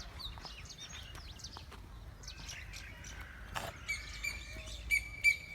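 Birds chirping and twittering, with a sharp knock about three and a half seconds in and a steady high-pitched tone from about four seconds on.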